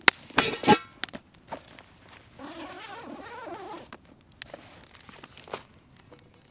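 A cast-iron Dutch oven being unpacked from its padded nylon carry bag: fabric rustling and zipper noise, with short metallic clinks of the cast iron near the start.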